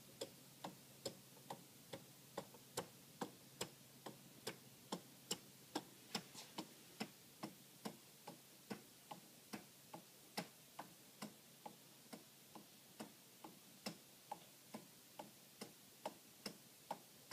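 Escapement of a homemade cardboard clock ticking: light, evenly spaced clicks a little over twice a second, alternating stronger and weaker, as the pallet catches and releases the cardboard escape wheel.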